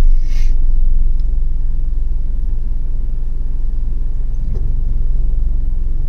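Steady low rumble of a moving car heard from inside the cabin, with a brief hiss right at the start.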